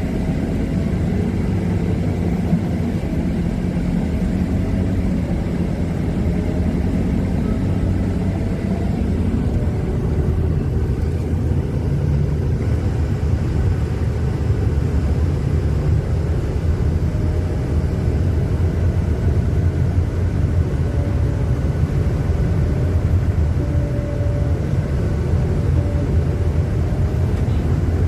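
Steady low rumble of a moving road vehicle's engine and road noise, with a faint whine that drifts slightly in pitch.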